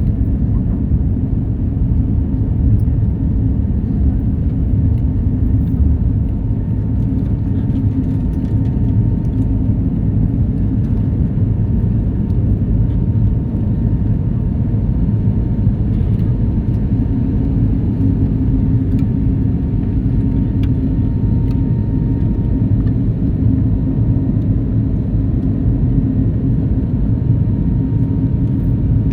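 Steady low rumble of a Boeing airliner's jet engines and rushing air, with no breaks. A faint steady whine comes in during the second half.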